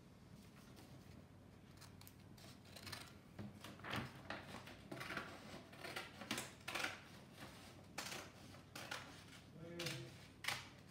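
Scissors cutting through a sheet of paper: a run of irregular snips and paper rustling that starts about two and a half seconds in, with a sharp click near the end.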